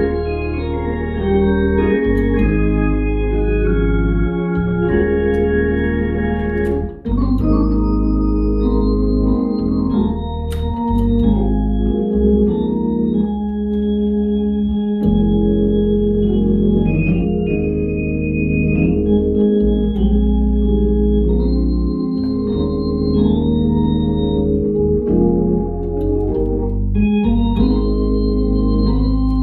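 Two-manual drawbar organ played as gospel worship music: full sustained chords over a heavy bass line, the harmony changing every second or two, with a brief break in the sound about seven seconds in.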